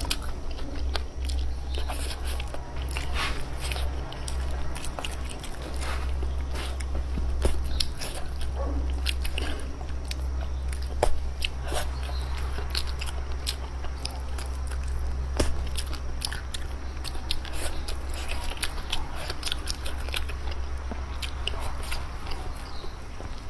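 A person eating close to the microphone: chewing and biting, with many irregular crisp crunches and mouth clicks, over a steady low hum.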